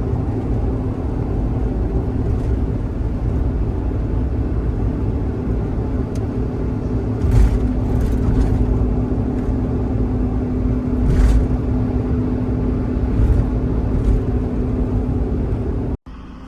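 A car on the move: steady low road and engine rumble, with a few short thumps along the way. It cuts off abruptly near the end to a quieter steady hum.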